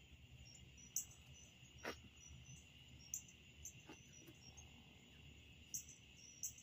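Faint steady high chirring of insects, with a few soft brief ticks.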